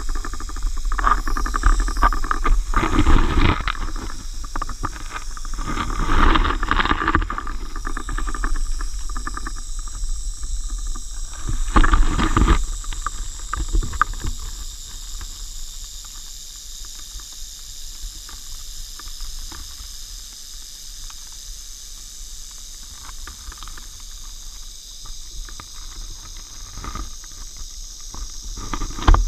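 Timber rattlesnake buzzing its raised tail rattle without a break, a defensive warning at being disturbed, muffled by the camera's waterproof housing. Louder knocks and rustles of the camera moving through grass come and go during the first half.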